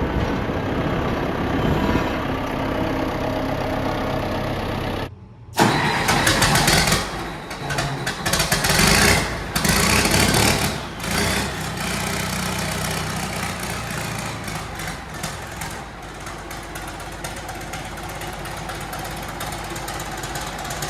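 A vehicle engine running steadily. About five seconds in the sound cuts off abruptly; louder, rougher engine noise with clatter follows for several seconds before it settles back into a steady running hum.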